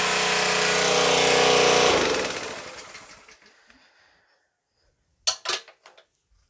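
A DeWalt petrol pressure washer runs steadily with the hiss of its spray. About two seconds in the engine shuts down and runs down to silence over about two seconds. Two short knocks come near the end.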